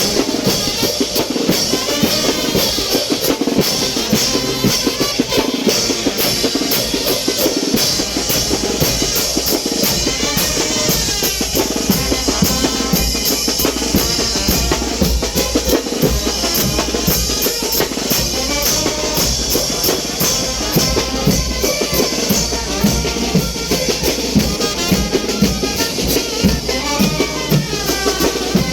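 Mexican wind band playing chinelo brinco dance music, with bass drum and snare drum keeping a fast, steady beat under the horns.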